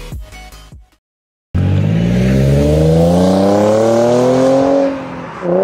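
Nissan 350Z's 3.5-litre V6 accelerating away, its pitch rising steadily for about three seconds, dropping at a gear change, then climbing again near the end. Electronic music ends in the first second, followed by a brief silence before the engine comes in.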